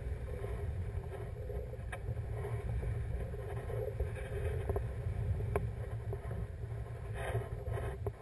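Wind buffeting the microphone of a camera carried on a paraglider in flight: a steady low rumble, with a few faint clicks.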